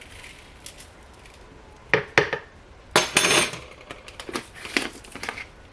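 Kitchen utensils and containers clinking and knocking as seasoning is measured into a bowl of ground beef. There are a few sharp knocks about two seconds in, a short noisy rattle a second later, then lighter clicks.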